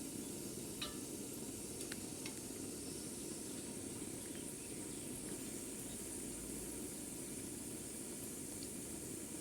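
Ginger, garlic and spice remedy mixture cooking in mustard oil over heat, a steady faint sizzle with a few faint ticks.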